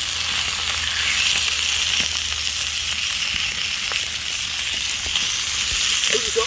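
Food sizzling in hot oil in a frying pan: a steady high hiss with scattered small pops and crackles.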